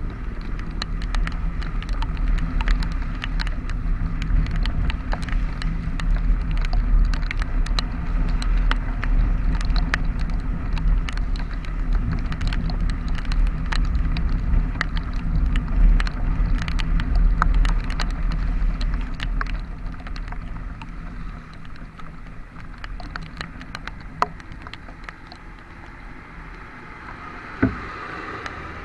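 Vehicle on the move in rain: a steady low engine and road rumble, with raindrops ticking sharply and irregularly. The rumble drops off after about twenty seconds, and there are two sharp knocks near the end.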